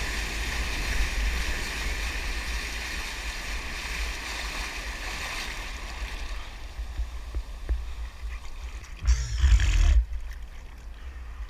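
Breaking whitewater rushing and churning right at a camera held low at the water's surface, with a heavy low rumble; it eases after about six seconds. About nine seconds in, a short, loud splash of water hits the camera housing.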